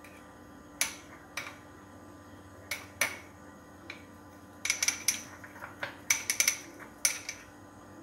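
Sharp clicks and taps of a utensil against a container: a few single taps, then quick clusters of several taps in the second half.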